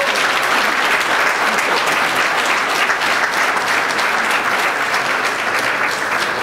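An audience applauding steadily, a dense clapping from many hands.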